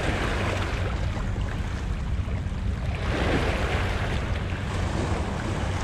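Wind buffeting the microphone over small waves washing against breakwater rocks, with a louder wash of water about three seconds in.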